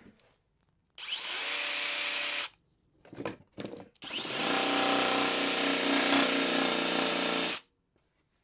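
DeWalt 20V cordless 3-inch cutoff tool converted to a mini belt sander, running free on a freshly fitted belt to test its tracking. A run of about a second and a half is followed by two brief blips, then a longer run of about three and a half seconds. Each run spins up with a rising whine, holds steady and stops abruptly.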